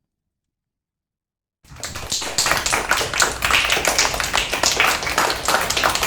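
Silence, then applause starts abruptly about a second and a half in: a group of hands clapping, dense and irregular.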